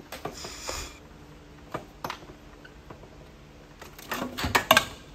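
A few scattered knocks and clinks of hard objects being handled, with a short rustle near the start and a cluster of louder knocks about four seconds in.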